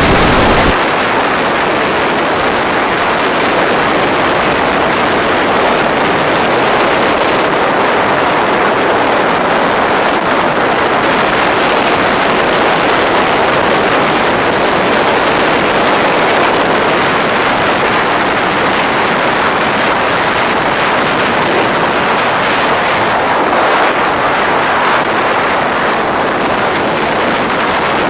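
Sea surf: a loud, steady rushing of waves with no separate breaks standing out.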